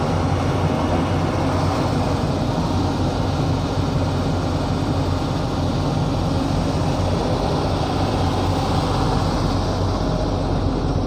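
Hitachi Zaxis 140 hydraulic excavator's diesel engine running steadily under load while the boom and bucket work, heard from inside the cab.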